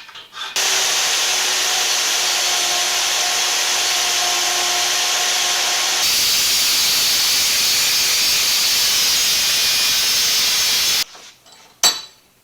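Power tool grinding a small quarter-inch steel piece to shape: a loud, steady hiss with a faint whine. It changes tone about six seconds in and stops abruptly near the end.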